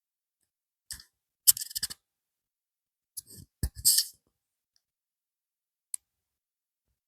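Handling noise from a set of wireless microphones being set up: a few separate clusters of clicks and rustles with dead silence between them, ending with a single click.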